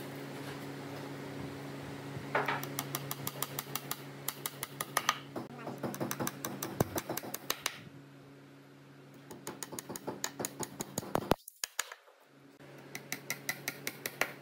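Rapid hammer taps on wood, about five a second, in several runs, over a steady low hum.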